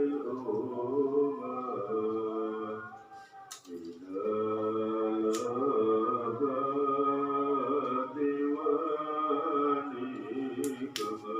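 Music with singing voices, held and gliding sung notes with short breaks between phrases, and a few sharp clicks.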